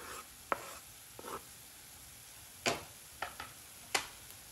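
A kitchen utensil knocks and scrapes against cookware about six times at uneven intervals, the loudest about two and a half seconds in, as diced onion goes into ground beef cooking in a pan.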